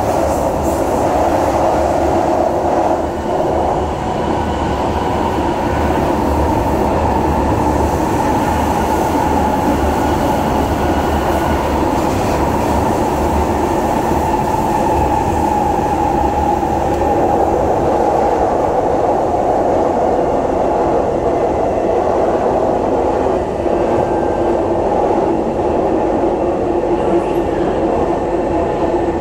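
Kawasaki Heavy Industries C151 metro train running between stations: a loud, steady running noise of wheels and motors on the rails.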